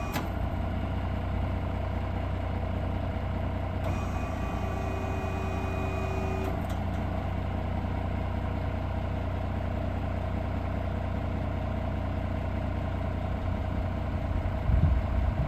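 Scania R450 truck's diesel engine idling with a steady low drone while the hydraulics fold the rear truck-mounted attenuator cushion upright. A faint thin whine joins for a couple of seconds about four seconds in.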